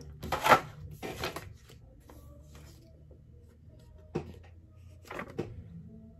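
Action-figure packaging being handled: a clear plastic clamshell tray and paper inserts. There is a sharp plastic clack about half a second in, another a moment later, then a few lighter knocks and rustles near the end.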